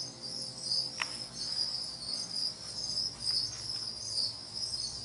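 Many feeder crickets chirping together in a steady, high, pulsing trill, with a single light click about a second in.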